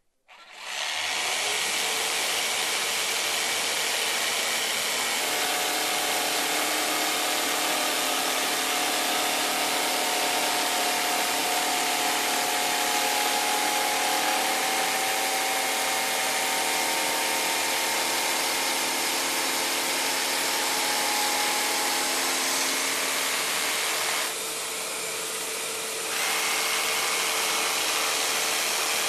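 Bosch green-line electric jigsaw starting up and cutting through plywood: a steady, loud run of the reciprocating blade that dips in level for about two seconds near the end.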